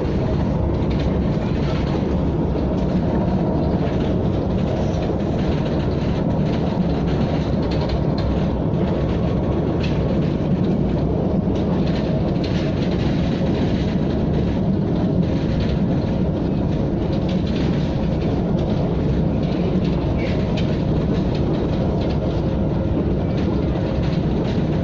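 KTM ETS electric train running at steady speed, heard on board: a continuous low rumble with faint steady tones and light clicks from the wheels over the track.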